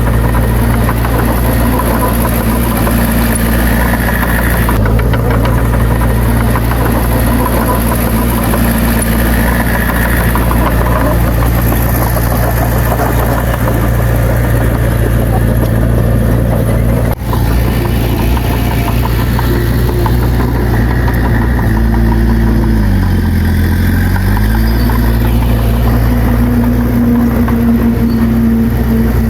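Bulldozer's diesel engine running steadily at a constant pitch. The engine speed sags briefly and comes back up about two-thirds of the way through.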